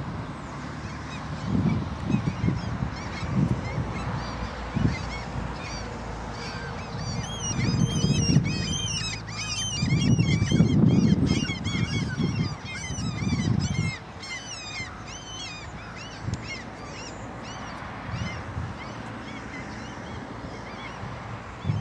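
Low rumble of an Airbus A319's jet engines at takeoff thrust, mixed with gusts of wind on the microphone, swelling about ten seconds in and easing off after about fourteen seconds. From about seven to fourteen seconds a flock of birds calls over it, many short rising-and-falling calls in quick succession.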